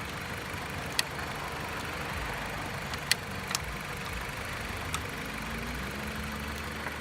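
Car engine idling steadily, with a few sharp clicks as jumper-cable clamps go onto the battery terminals.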